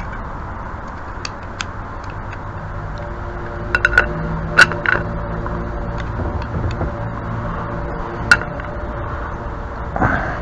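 Sharp clicks and clinks of brass pipe fittings being handled and fitted together: a few light ones early, a louder cluster about four to five seconds in and a single sharp one just past eight seconds, over a steady low hum.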